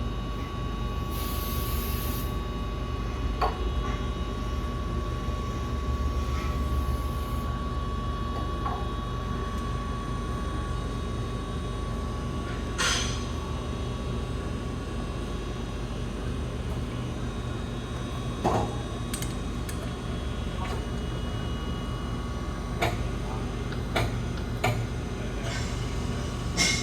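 A steady mechanical hum and rumble of hydraulic hose repair work, with a brief hiss about a second in and scattered metallic knocks and clicks of tools and fittings.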